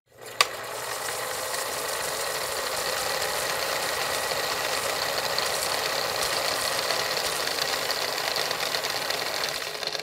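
VCR tape-rewind sound effect: a click about half a second in, then a steady mechanical whirring hiss.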